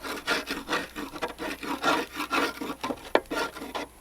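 Repeated scraping strokes, about three a second, against the underside of an upturned mower deck as caked grass and weed residue is worked off.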